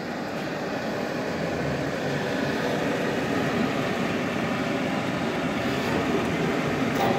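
Steady industrial machine noise from a pipe-cutting setup: an even, rumbling hiss with no rhythm, growing slightly louder, and a light click near the end.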